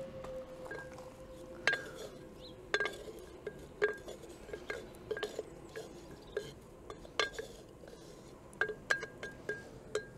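Wooden spoon knocking and scraping against the inside of an earthenware cooking jar while stirring onions frying in oil: a string of irregular clinks, each with a short ceramic ring.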